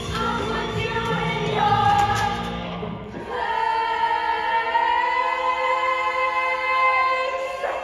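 A musical-theatre ensemble sings with live band accompaniment. About three seconds in, the voices settle onto one long held chord as the bass drops away, and it cuts off just before the end.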